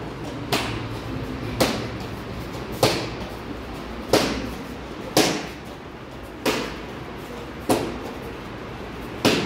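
Barefoot kicks smacking a handheld kick paddle, eight sharp slaps about every second and a quarter, each followed by a short echo in the hall.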